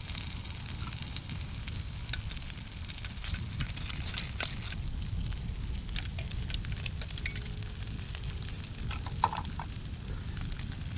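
Perch fillets frying in butter in a metal pan over a wood fire: a steady sizzle with scattered sharp pops and crackles.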